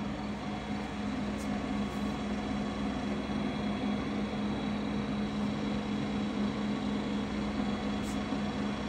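Mecca Turn 460x1000 lathe running with the longitudinal power feed engaged, its carriage traversing along the bed: a steady mechanical hum of the motor and gear train with a strong low tone.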